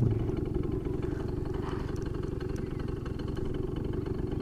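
CPI Aragon GP 50 scooter's 50 cc two-stroke engine idling steadily.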